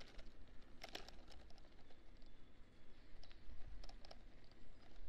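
Bicycle's front wire basket rattling over the road in irregular light clicks and clatters, a small cluster about a second in and more near four seconds, over a low rumble of wind on the microphone.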